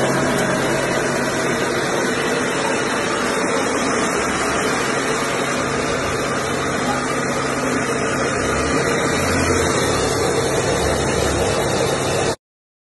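Small combined rice mill running steadily while milling rice: a loud, even mechanical hum and whir. It cuts off suddenly near the end.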